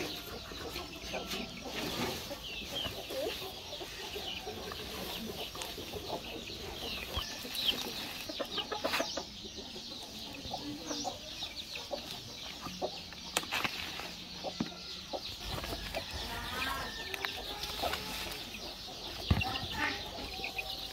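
Chickens clucking and chicks peeping over and over in short, high chirps, with occasional rustles and knocks from bundles of fern greens being handled.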